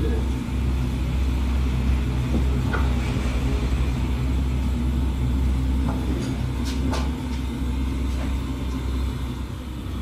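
Steady low machine hum of workshop machinery, with a few sharp knocks and clicks as a large tractor tire is handled and lifted from its metal clamping frame, the loudest pair a little before seven seconds in.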